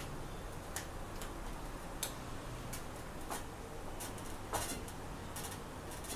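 Light, irregularly spaced clicks, about a dozen over several seconds, from typing on an iPhone's on-screen keyboard; the loudest comes about halfway through.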